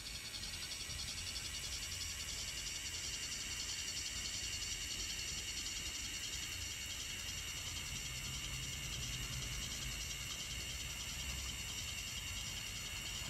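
Brass HOn3 Shay model locomotive by Nakamura Seimitsu running on track, its Namiki coreless motor and geared drive giving a steady, high-pitched whir over a low rolling rumble.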